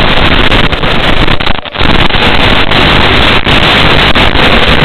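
Loud steady hiss of radio static, the audio channel of an analog FPV video receiver recorded along with the goggle footage. It breaks off briefly about a second and a half in and again shortly after three seconds.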